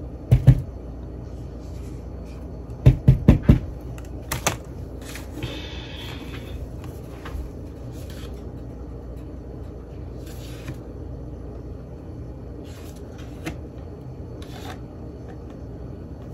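Kitchen handling of a plastic whipped-topping tub and mixing bowl: scattered knocks and taps, with four quick knocks about three seconds in and a short scrape a few seconds later, over a steady low hum.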